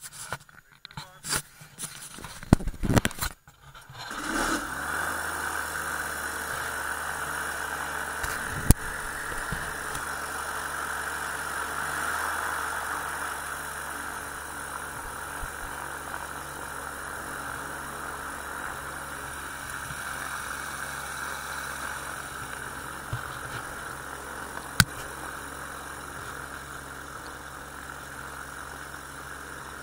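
Magni M16 autogyro's engine: a few seconds of irregular clattering knocks, then the engine catches about four seconds in and idles steadily. Two sharp clicks stand out over the idle, one about nine seconds in and one near 25 seconds.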